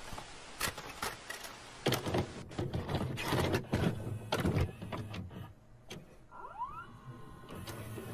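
VCR tape mechanism loading and starting a cassette: a run of mechanical clicks and clunks over a hiss, with a short rising motor whine a little after six seconds in.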